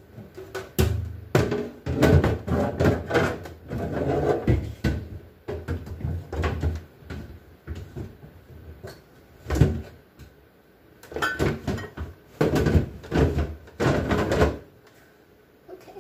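Irregular knocks, clunks and rattles of shelves, drawers and containers being handled and set into a refrigerator, in runs with short pauses.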